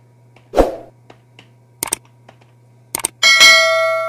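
Subscribe-button sound effect: a thump, a few sharp clicks, then a bell ding with several ringing tones, loudest about three seconds in, fading away.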